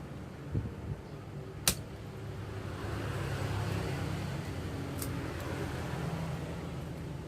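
A steady low hum with a few short sharp clicks, the loudest a little under two seconds in, like small parts and tools being handled during a phone repair.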